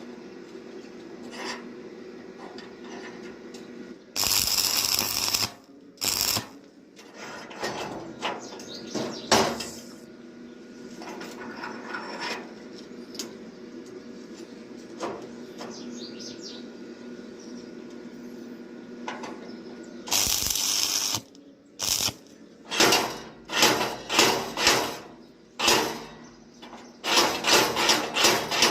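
Metal fabrication work on steel: scattered clanks and knocks of iron pieces being handled and struck, becoming a quick run of hammer-like strikes near the end. Two harsh bursts of about a second each, about four seconds in and again about twenty seconds in, come over a steady low hum.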